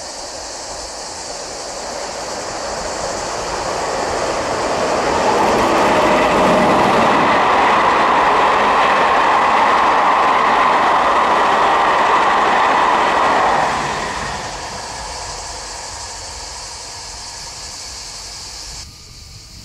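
Passenger train of locomotive-hauled coaches passing on the line: wheels rolling and clicking over the rails. It grows louder over the first five seconds, holds for about eight, then fades away.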